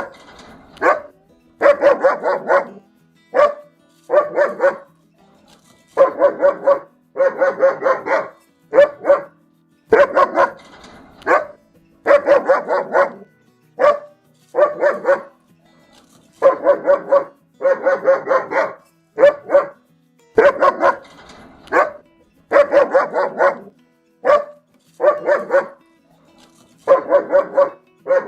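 German Shepherd dog barking loud and angrily, in rapid bursts of several barks, one burst about every one to two seconds.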